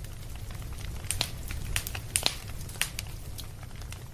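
Wood campfire crackling, with irregular sharp pops and snaps over a low steady rumble.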